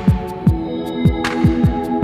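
Electronic outro music: deep kick drum thuds that drop in pitch, roughly two to three a second, over held synth chords, with light hi-hat ticks.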